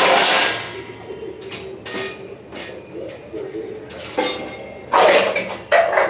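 Kitchen work: a sudden loud burst of noise that fades over about a second, then a string of knocks and clinks of metal kitchen utensils and pots, busiest near the end.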